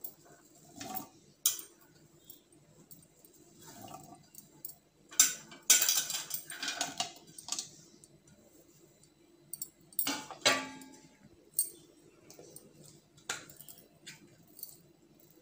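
Chopped fruit and vegetable pieces dropped from a plate into a stainless-steel mixer-grinder jar: scattered taps and clinks, a busy run of them about five to seven seconds in, and a sharper metallic clink with a short ring about ten seconds in.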